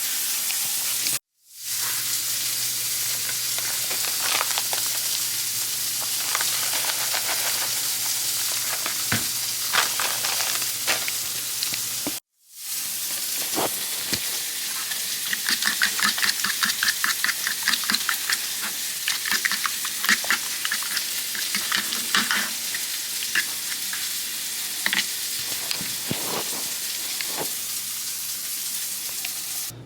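Food sizzling in a frying pan on the stove, a steady hiss that breaks off twice briefly. From about halfway, a cooking utensil stirs and scrapes in the pan in quick repeated strokes.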